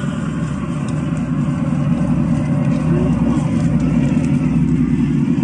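Motor vehicle running steadily off-road, a dense low rumble that holds at an even level.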